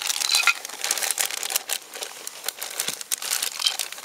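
Clear plastic zip-lock bag crinkling as hands pull its seal open, a dense run of irregular sharp crackles.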